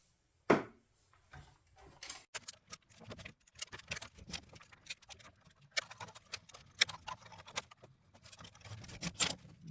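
Small tools and metal parts of a 16mm projector being handled, with scattered, irregular clicks and taps and one sharper knock about half a second in.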